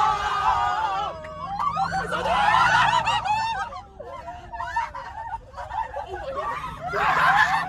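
A group of young people laughing and shrieking together in irregular outbursts inside a moving van, with the van's engine and road rumble underneath.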